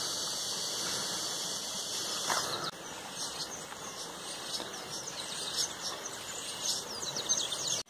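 Riverside ambience: a steady high insect buzz, fading about a third of the way in, with many short high bird chirps, busiest in the second half.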